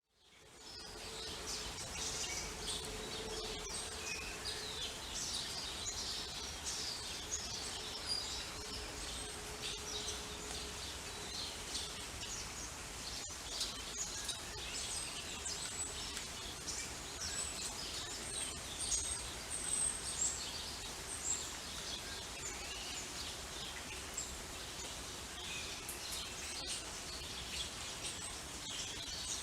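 Steady rain falling, with many birds chirping and singing over it; the sound fades in at the start.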